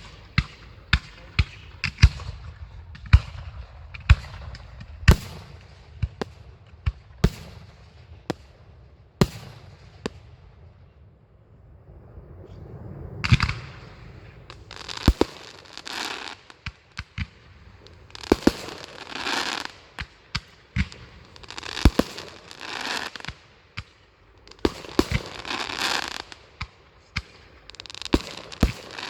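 Fireworks display: a quick series of sharp bangs from aerial shells for the first dozen seconds, then repeated bursts of hiss, each about a second long, mixed with further bangs.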